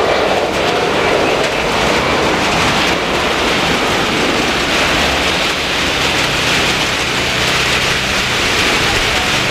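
Jet airliner passing on a rain-soaked runway: a loud, steady rushing of engine noise and heavy rain, with a low hum coming in about six seconds in.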